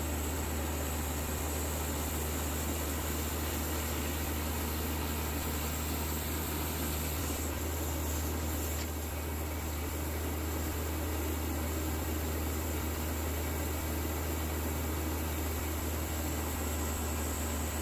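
Baker 3665D bandsaw mill running steadily, its blade sawing a Douglas fir cant: an even machine hum under a continuous hiss.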